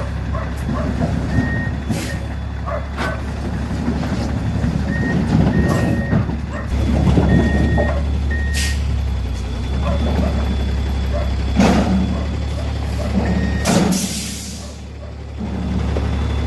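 Truck delivering firewood, its engine running steadily with short high beeps every few seconds, typical of a reversing alarm, and several sharp bangs or hisses.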